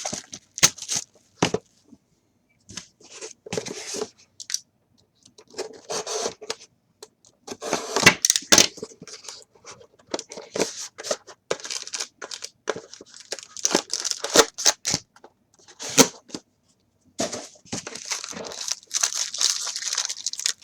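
Trading card packs being torn open by hand, the wrappers tearing and crinkling in irregular bursts with short pauses between them.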